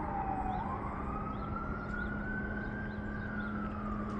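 Fire engine siren in a slow wail: the pitch dips, climbs over about two seconds, then slowly falls again. A steady low hum runs underneath.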